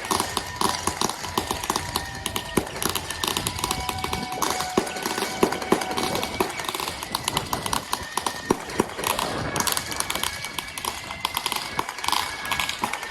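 A dense, irregular clatter of sharp cracks and taps, with a few faint steady tones held underneath.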